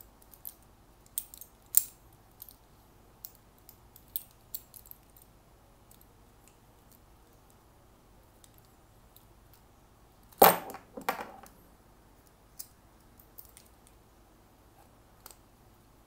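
Small metallic clicks and clinks of a folding multi-tool's hex key working the bolt of a Shimano SPD PD-M505 pedal's platform adapter, the tool's other blades rattling as it is turned. A louder metal clatter comes about ten and a half seconds in, then a few faint ticks.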